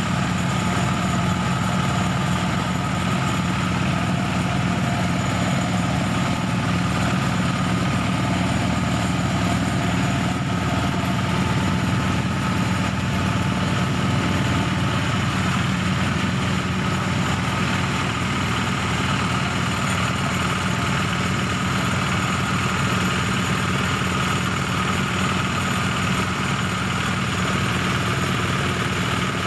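A power rice thresher running steadily: its small engine and spinning threshing drum hum at a constant speed.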